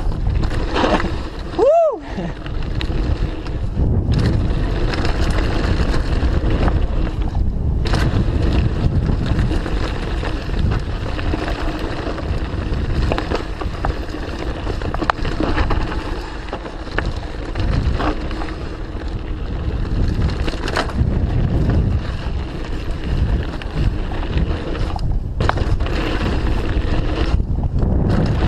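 Mountain bike descending a rough trail at speed: a steady rush of wind on the bike-mounted camera's microphone mixed with tyre noise, with scattered knocks and rattles from bumps. A short rising-and-falling tone is heard about two seconds in.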